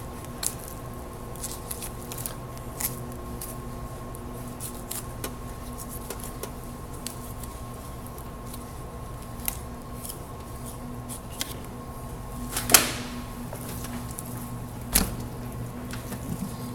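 Knife work on a lamb carcass: scattered small clicks and taps of the blade against meat and bone, with a louder short scraping burst about three-quarters of the way through and a sharp knock soon after. A steady hum runs underneath.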